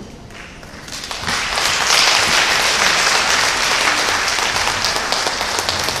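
Audience applauding, starting about a second in and carrying on steadily.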